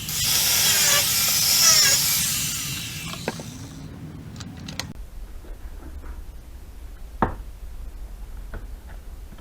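Handheld power tool running loud under load, then spinning down and stopping about four to five seconds in. After it come a few light clicks and one sharper knock.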